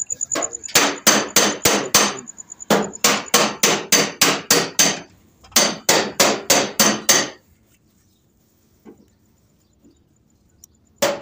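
Repeated hammering, about three to four blows a second in runs of several. It stops a little over halfway through for a few seconds of near quiet.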